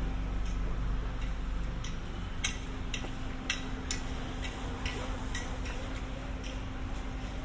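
Footsteps on a paved street: light, sharp clicks about twice a second, loudest in the middle, over a steady low hum.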